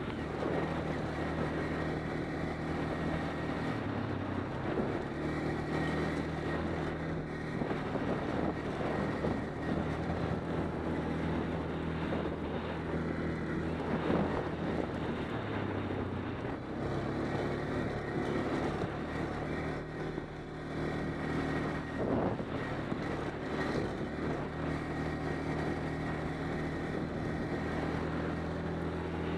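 ATV engine running steadily as the quad is ridden along a rough, leaf-covered trail. Its note dips briefly a few times, and there are a couple of sharp knocks from the rough ground.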